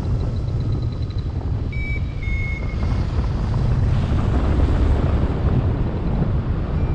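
Steady rush of wind on the microphone from the airflow of paragliding flight. Two short high tones sound about two seconds in.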